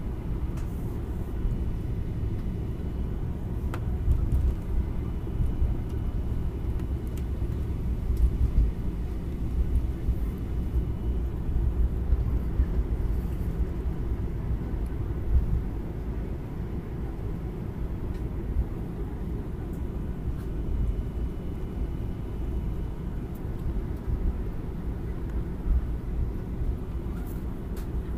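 Cabin noise inside a Boeing 737-800 accelerating down the runway for takeoff: a deep, steady rumble of the engines and the wheels on the runway. Over it runs a faint, steady high whine, and there are a few light knocks.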